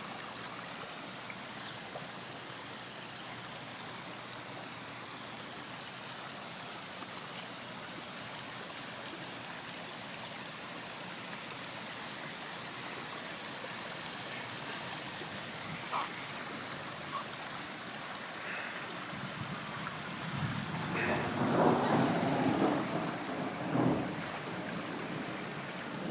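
Steady rushing hiss of running floodwater, perhaps with light rain, swelling into a louder, uneven rush about three quarters of the way through.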